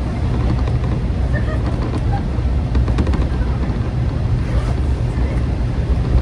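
JR Shikoku KiHa 40-series diesel railcar running, heard from inside the passenger cabin as a steady low rumble.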